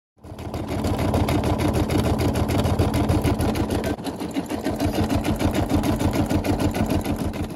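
Brother SE625 computerised embroidery machine stitching a design, its needle running at a rapid, even rhythm. It starts up just after the opening and stops near the end.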